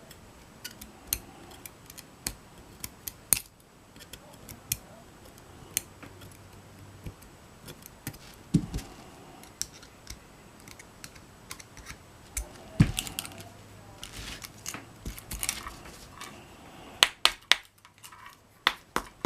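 Small metal tools clicking and tapping irregularly against a padlock while springs and pins are worked out of its pin chambers, with a quick run of clicks near the end.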